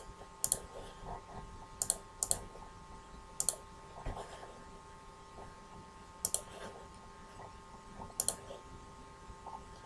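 Computer mouse clicking: about seven short, sharp clicks at irregular intervals, some in quick pairs, over a faint steady hum.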